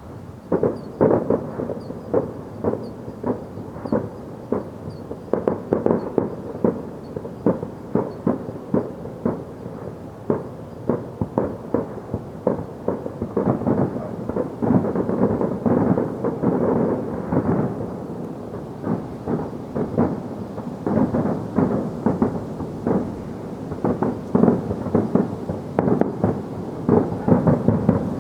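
Fireworks going off in a dense, continuous barrage of bangs, several a second, easing briefly a little past the middle before picking up again.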